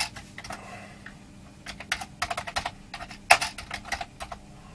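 Typing on a Commodore C16 keyboard: sharp clacks of the plastic keys, a couple at the start, a pause of about a second, then a quick run of keystrokes.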